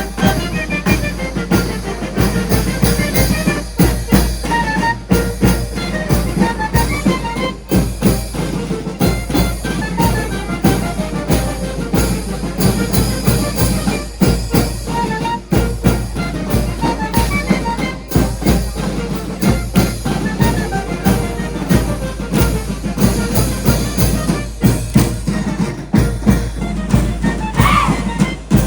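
Music with a steady drum beat and percussion throughout.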